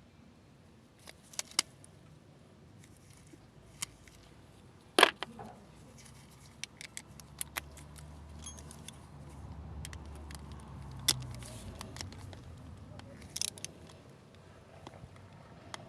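Metal tools and starter-motor parts being handled: scattered sharp clinks and clicks, with one louder knock about five seconds in, over a faint low hum through the middle.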